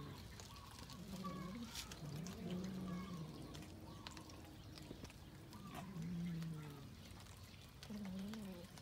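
Cats eating raw fish from a metal tray, with several low, drawn-out cat growls about a second long, one after another, and short wet chewing clicks between them.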